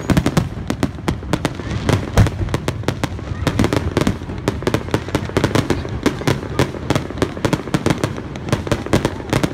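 Aerial fireworks bursting overhead in quick succession: a dense, unbroken run of bangs and crackles, many every second.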